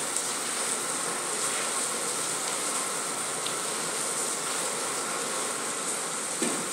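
Steady hissing background noise with a strong high band. Near the end comes a single light knock, a pool cue tip striking the cue ball.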